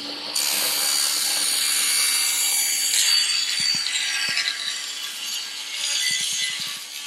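Table saw with a 216 mm, 64-tooth thin-kerf blade crosscutting 12 mm plywood: the spinning blade hums steadily under a dense, high hiss of cutting that comes in about a third of a second in and fades near the end as the cut finishes.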